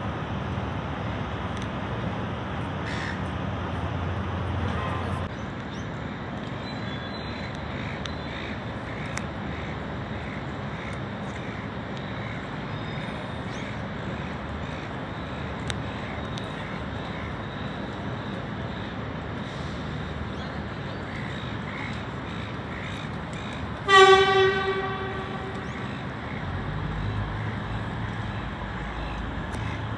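A VLocity diesel railcar sounds its horn once, a short loud blast near the end that fades out over about a second, over a steady background rumble of the rail yard.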